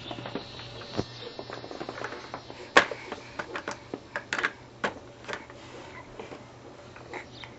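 Irregular light taps and clicks, with a sharper knock about three seconds in: a baby crawling and handling things on a hard floor.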